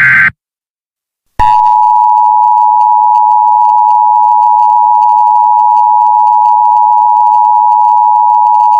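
The last short burst of an Emergency Alert System SAME digital header screeches briefly at the start. After about a second of silence, the EAS two-tone attention signal (853 and 960 Hz together) begins about a second and a half in and holds loud and steady.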